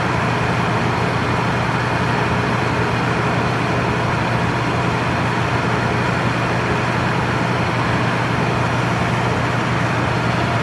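Enco DSR-750S radial arm drill press running steadily, its motor and spindle gearing giving a constant low hum with mechanical whirring, while the spindle turns under automatic power down feed.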